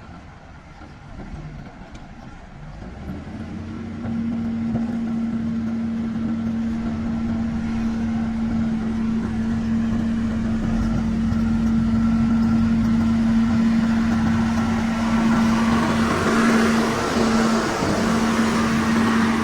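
Motor grader's diesel engine running with a steady drone that grows louder a few seconds in. A harsher hiss builds near the end as the machine works close by.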